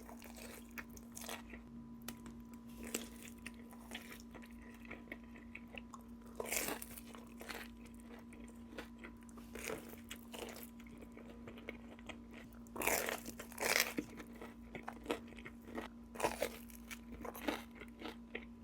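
Close-miked biting and chewing of Little Caesars food: a run of crunches and mouth sounds, with the loudest crunchy bites about six seconds in and again around thirteen to fourteen seconds in.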